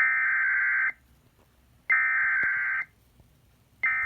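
Emergency Alert System SAME header: buzzy digital data bursts, each just under a second long and a second apart, two in full and the third starting near the end. The header encodes the start of a severe thunderstorm warning.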